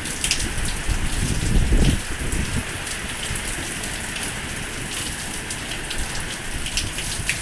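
Heavy rain pouring down in a rainstorm, a steady hiss with scattered sharp drop splashes. A low gusting rumble is loudest in the first two seconds, then eases.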